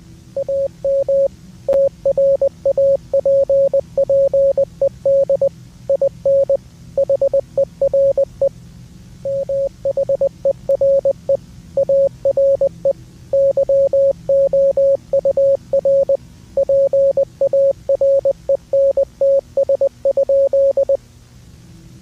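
Morse code sent as a single steady mid-pitched beep, keyed on and off in short and long tones grouped into letters and words, over a faint low hum. The keying stops about 21 seconds in.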